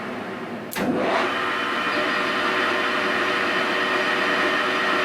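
Victor 1640 engine lathe running under power. A click comes a little under a second in, after which the machine runs louder with a steady whine.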